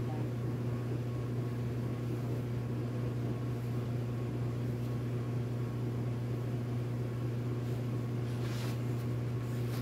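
Steady low machine hum, like a small motor or fan running, even throughout. A faint rustle of cloth comes near the end.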